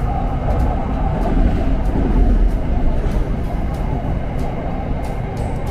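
SRT Red Line electric commuter train running, heard from inside the carriage: a steady low rumble of wheels on rails with the motors, swelling slightly about two seconds in.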